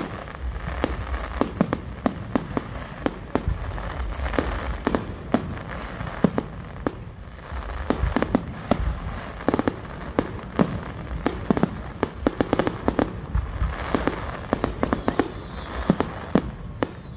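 Fireworks going off in a rapid barrage, with many sharp bangs, often several a second, over continuous crackling and a low rumble.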